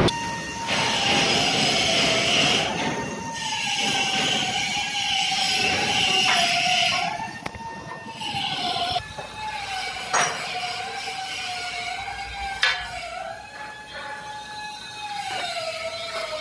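Engine-room machinery noise: a whine that wanders slowly up and down in pitch over a steady hiss, the hiss dropping away about seven seconds in, with two sharp knocks in the second half.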